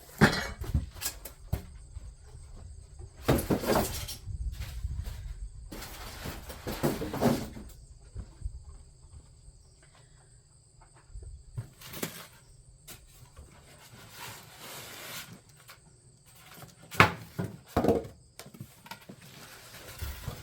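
Smoker parts and their packaging being unpacked by hand: scattered rustles, scrapes and knocks, with the loudest near the start, at about three to four seconds, around seven seconds and near the end, and quieter handling between.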